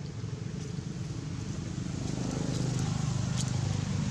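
A motor vehicle's engine running nearby, a steady low hum that grows louder about halfway through, as if drawing closer.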